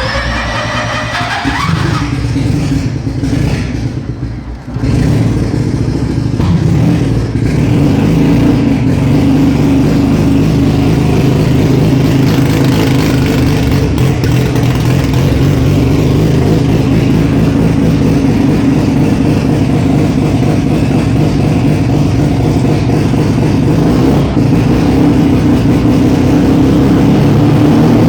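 Datsun 1200 coupe race car's engine running loud, freshly brought to life and not yet dyno-tuned. It is revved with a rising pitch in the first couple of seconds and drops off briefly about four seconds in. After that it runs steadily.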